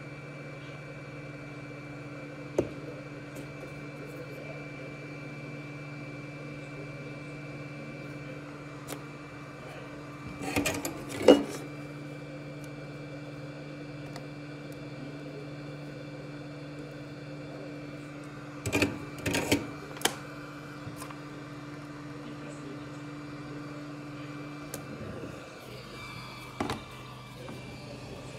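Small clicks and taps of a soldering iron, tweezers and a flux bottle on a laptop circuit board, in a few short clusters, over a steady hum from the bench equipment; part of the hum cuts out near the end.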